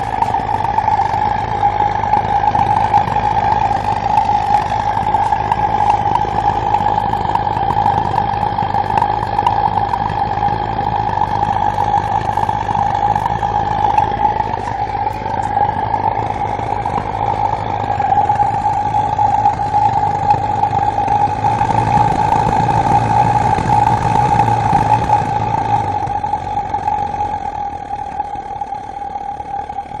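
Propane-fired Reil burner running on test fire: a steady, loud roar with a strong steady tone running through it, easing slightly near the end.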